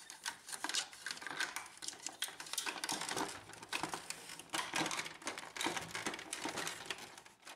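Irregular clicking and light rattling of plastic and metal printer parts as the scanner unit's support arm is fitted back onto its pin. It cuts off abruptly just before the end.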